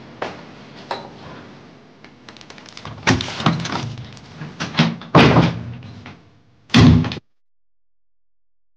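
Door banging and slamming: a few light clicks, then a run of heavy bangs and thuds from about three seconds in, ending in the loudest slam, after which the sound cuts out abruptly.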